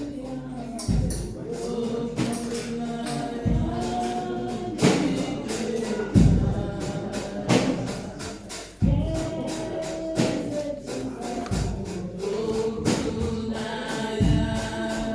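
Gospel song sung by a choir of voices, with tambourine jingling throughout and deep drum hits every few seconds.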